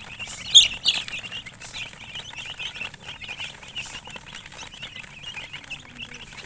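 Chickens chirping: many short high chirps overlapping, with a louder burst about half a second in.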